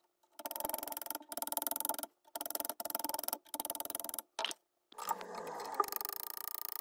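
A hammer tapping a tight-fitting canted scope rail onto a rifle's rail: short stretches of quick light tapping, broken by abrupt cuts, with a couple of sharper knocks. The rail is slightly too wide and has to be driven on.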